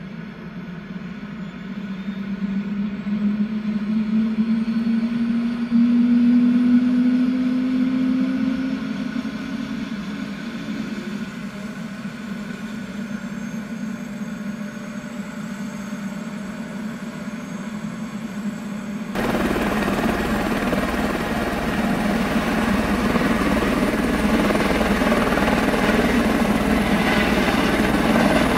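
Airbus H130 (EC130 B4) helicopter starting up: its Turbomeca Arriel 2B1 turboshaft spools up with a rising whine as the main rotor gathers speed. About two-thirds through, the sound turns suddenly into a louder rushing turbine-and-rotor noise with a fast low beat from the blades.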